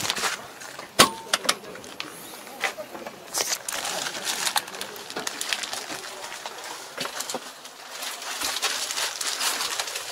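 Rustling and knocking as someone climbs into a tractor cab, with a sharp click about a second in.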